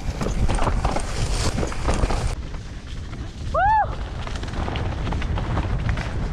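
Mountain bike riding over a rough dirt trail: heavy wind buffeting on the camera microphone, with the rattle and knocks of the bike over the ground. A short pitched sound that rises and falls comes just past halfway.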